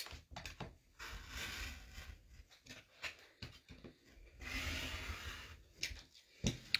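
Rotary cutter blade rolling through fabric on a cutting mat along a quilting ruler: two cutting strokes of a second or more each, with a few light clicks and taps between them.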